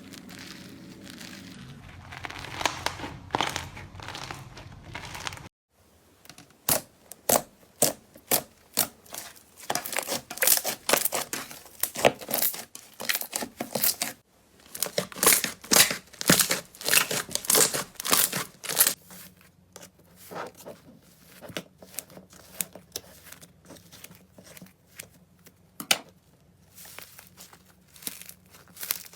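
Slime being squeezed and worked, giving crinkling, crackling pops. About five seconds in the sound cuts off sharply and a denser run of rapid clicks begins, thinning out after the middle.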